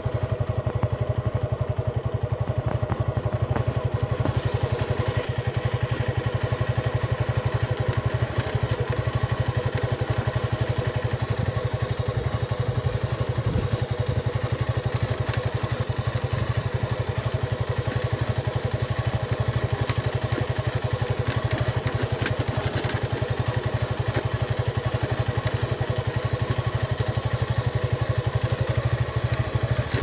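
Motorcycle engine running steadily at an even speed, with a few short clicks and rattles.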